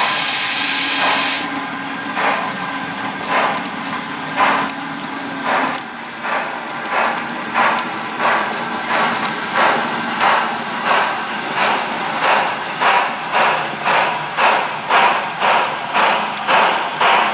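Sound decoder of a model steam tank locomotive: a steam hiss for the first second or so, then exhaust chuffs that begin about once a second and quicken steadily to about two a second as the locomotive pulls away.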